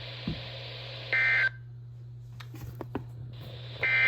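Emergency Alert System SAME digital data bursts, short warbling two-tone chirps marking the end of an alert message. Two bursts come, about a second in and again just before the end, over a steady low hum, with a low thump near the start.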